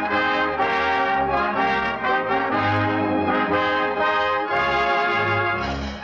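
Brass-led orchestral music bridge from a 1940 radio broadcast: a run of held chords that change every second or so, marking the move from one segment of the show to the next.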